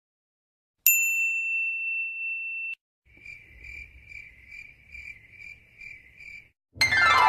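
Comedy sound effects in sequence: a single bright ding that rings for about two seconds and cuts off, then the 'awkward silence' cricket effect, soft high chirps about twice a second. Near the end a loud sound with a falling pitch begins.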